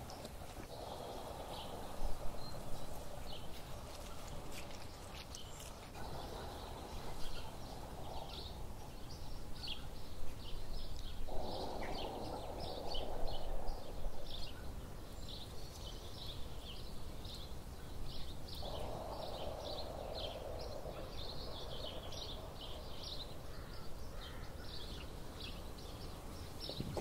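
Small birds chirping and twittering over and over, with a soft rushing hiss that comes and goes in stretches of a few seconds.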